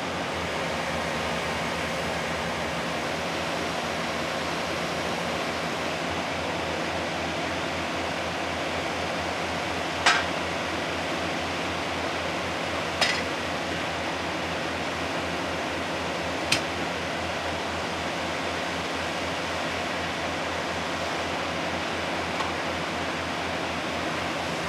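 Exploration drilling rig running steadily while it drills, a constant engine drone and machine noise. Three sharp knocks about ten, thirteen and sixteen seconds in, and a faint one near the end.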